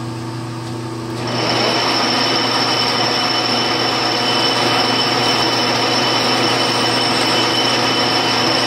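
Metal lathe spindle switched on about a second in, coming up to speed and then running steadily with a high whine, the chuck and workpiece spinning without load before the drill bit engages.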